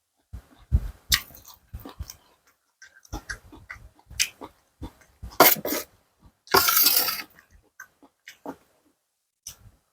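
Close-up chewing and crunching of a spicy seafood salad of squid, shrimp, enoki mushrooms and corn with fresh lettuce, with irregular wet smacks and crunches. There is one longer, louder stretch of crunching noise about six and a half seconds in.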